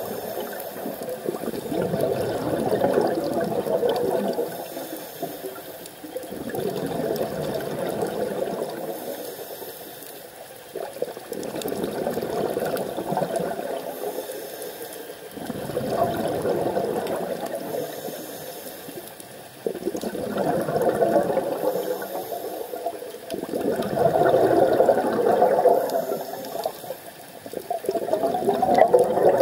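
Scuba diver breathing underwater through a regulator: a rushing, bubbling surge of exhaled air comes about every four seconds, with quieter gaps between.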